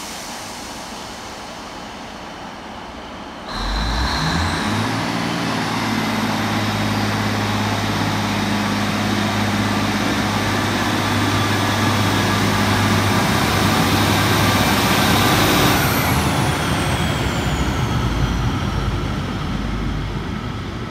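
Class 153 diesel railcar's underfloor engine ticking over, then opening up about three and a half seconds in as the unit pulls away, running loud with a high whine. Near the end the whine falls in pitch and the sound eases off as the railcar moves away.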